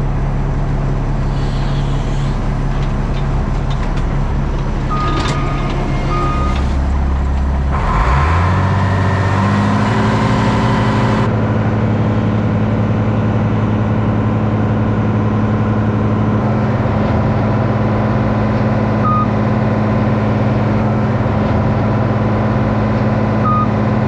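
Diesel tractor engine running steadily, its pitch rising about eight seconds in as it is throttled up and then holding at the higher speed. A few short high beeps sound over it, twice close together early and twice more near the end.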